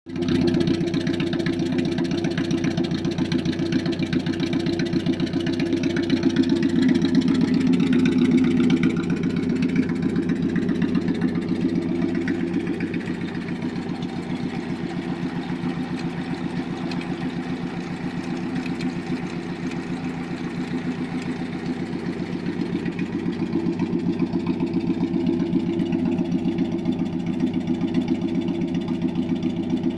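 1973 Datsun 620's 1.6-litre four-cylinder engine, running on a Weber carburettor through a straight exhaust, idling steadily.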